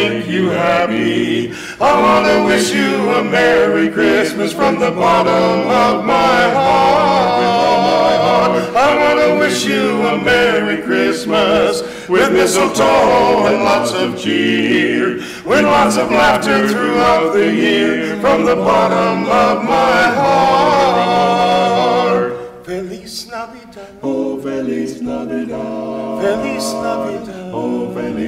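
Male vocal quartet singing a cappella in four-part harmony, phrase after phrase with short breaks between. About 22 seconds in the singing briefly drops away, then comes back softer.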